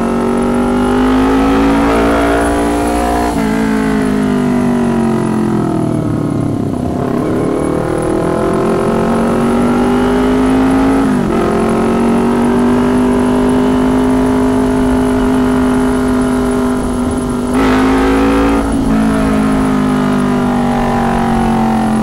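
Kawasaki Ninja 250 (2019) parallel-twin engine running through a very loud aftermarket exhaust, heard from the rider's seat while riding in traffic. It revs up and drops in pitch at upshifts about three and eleven seconds in, with a dip off the throttle between them. After that it cruises fairly steadily, with a brief louder burst of throttle about eighteen seconds in.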